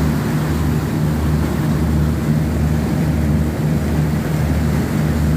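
A motor boat's engine running under way at cruising speed, a steady low drone with a slow throb, over the rushing churn of the wake behind the stern.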